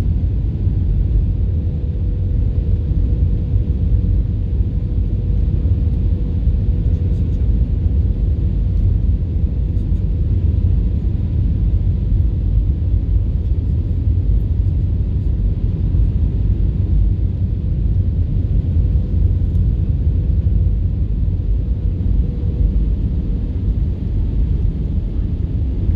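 Steady low rumble of an airliner's engines and airflow heard inside the cabin during the landing approach, with a faint steady hum throughout.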